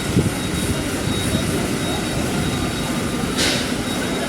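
Steady, loud machinery drone on a ferry's enclosed car deck, from the ship's engines and vehicles on board, with a short hiss about three and a half seconds in and a light knock near the start.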